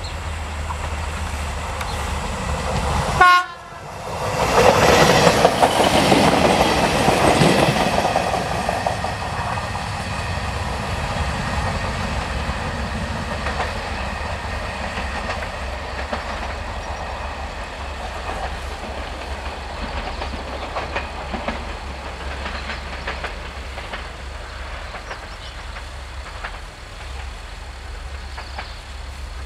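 TFC class 78 diesel-hydraulic railcar passing close with its engine running and wheels clattering over the rail joints. The sound is loudest a few seconds in, then fades to a steady low engine rumble as it moves away. A brief loud blip and an abrupt break come just before the pass.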